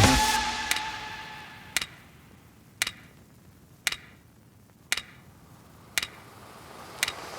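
Music dying away, then sharp ticks evenly spaced about once a second over a quiet background.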